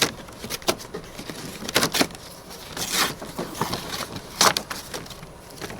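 Cardboard packaging of a mechanic's tool set being torn open and handled: irregular rustles, rips and knocks, the sharpest about two, three and four and a half seconds in.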